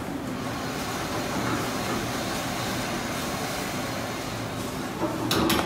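Steady machine drone with a low hum, like a ventilation fan running. A brief, louder scuffing noise comes near the end.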